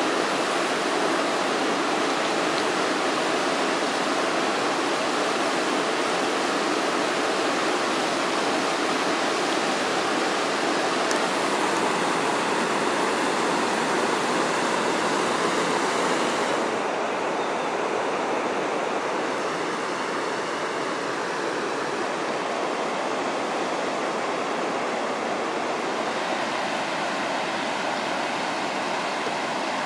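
Whitewater of the Revun rapids on the Iset River rushing over boulders, a steady even hiss. About halfway through it becomes a little duller and quieter.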